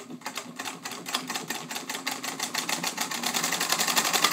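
Singer 66 sewing machine, fitted with an upgraded motor, stitching through three layers of thick cotton webbing. It makes a rapid, even clatter of stitches that speeds up and grows louder toward the end.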